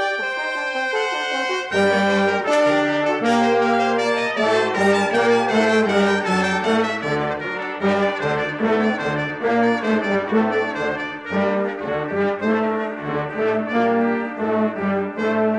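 A brass ensemble of trumpets, trombones, euphonium and tuba playing together, with several parts moving at once over a tuba bass line that steps from note to note. The full ensemble comes in loudly about two seconds in.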